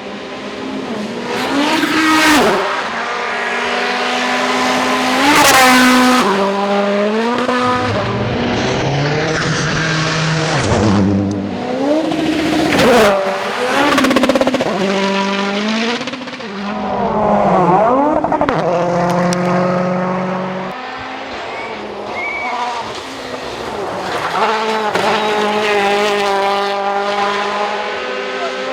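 Several World Rally Cars going by flat out, one after another, their turbocharged four-cylinder engines revving up and dropping through gear changes and lifts, the pitch swinging down as each car passes.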